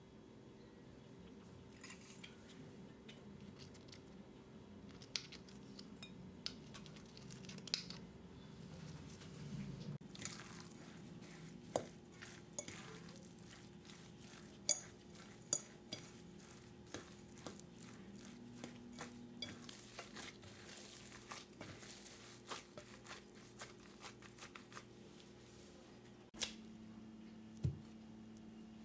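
Faint kitchen handling: utensils and dishes clinking and knocking in scattered light clicks over a low steady hum.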